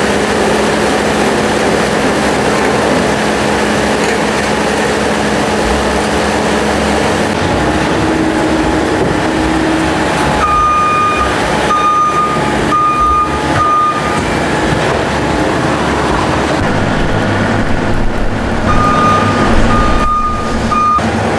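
New Holland 328 skid steer loader's diesel engine running as it works a compost pile with a mixing bucket. A backup alarm beeps a steady run of short beeps about halfway through, and again near the end, as the loader reverses.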